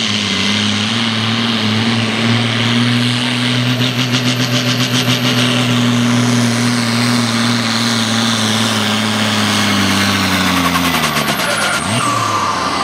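Valmet tractor's six-cylinder diesel running flat out under heavy load while dragging a tractor-pulling sled. About eleven seconds in, its pitch falls away as the tractor loses speed and comes to a stop.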